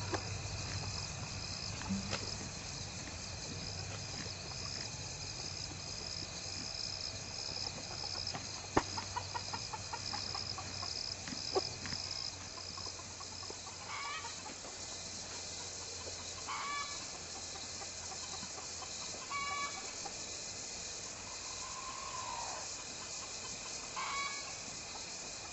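Chickens clucking in short calls every few seconds, over a steady high chirring of insects that stops about halfway through.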